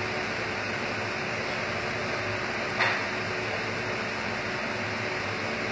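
Steady hum and rush of an air conditioner running in the room, with one brief short sound about three seconds in.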